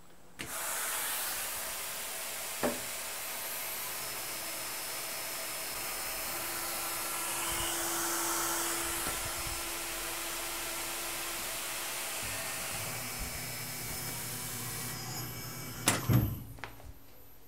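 Tormach PCNC 1100 CNC mill with its spindle running and coolant spray hissing steadily while a reamer feeds into a drilled hole in 4140 steel. The hiss cuts off after about fifteen seconds, followed by a few loud clunks as the spindle head comes back up.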